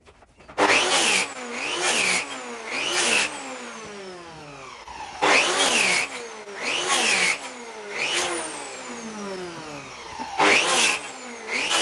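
Rail-guided power saw cutting a tenon in green oak in repeated passes. There are about eight loud cutting bursts, and the motor's pitch dips and recovers with each bite into the wood.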